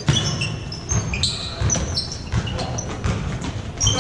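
Basketball bouncing on a hardwood gym floor in irregular thuds during play, with sneakers squeaking in short, high chirps.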